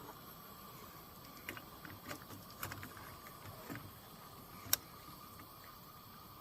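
Scattered light clicks and taps of a metal fork against cookware, the sharpest near the end, over the steady hiss of a running Coleman 502A camp stove.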